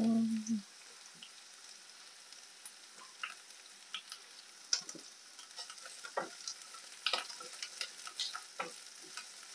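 Shallots, garlic and julienned carrot sizzling in oil in a non-stick frying pan, with scattered clicks and scrapes as the carrot is spread and then stirred with a wooden spatula. A brief hum of a voice opens it.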